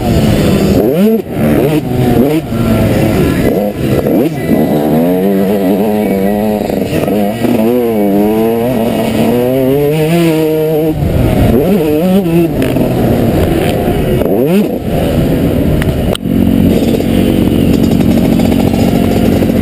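Yamaha YZ 125 two-stroke motocross engine ridden hard, its pitch rising and falling again and again as the rider revs it out and shifts through the gears. About three seconds before the end the sound breaks off abruptly into a steadier, more even engine note.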